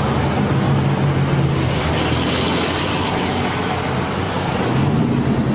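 Street traffic: vehicles going by, with a steady low engine hum under a hiss that swells briefly about two seconds in.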